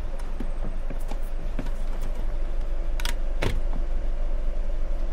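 Minibus engine running with a steady low rumble, with a couple of sharp clicks or knocks about three and three and a half seconds in.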